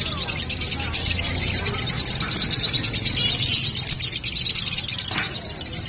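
Many caged pet birds chirping and chattering at once, a dense steady twittering.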